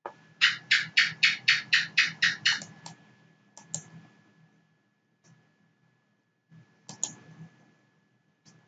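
Clicking at a computer: a quick, even run of about ten clicks at about four a second, then a few scattered single clicks.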